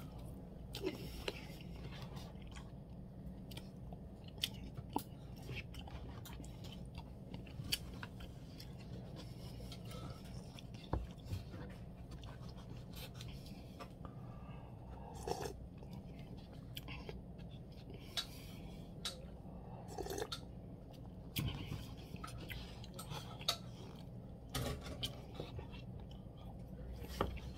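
A person eating soup from a paper cup with a plastic spoon: chewing with many small scattered clicks and smacks, and a few short louder sounds.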